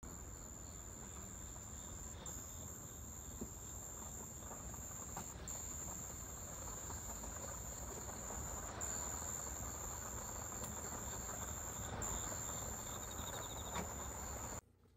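Outdoor chorus of singing insects: a steady high-pitched trill that breaks off briefly every two to three seconds, with a short faster pulsing call near the end, over faint background noise. It cuts off suddenly just before the end.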